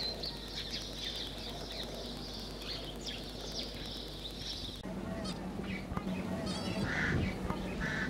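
Outdoor bird calls: a dense, high twittering chorus, then an abrupt change about five seconds in to a low steady hum under scattered chirps and a short trill. Two short, louder calls come near the end, less than a second apart.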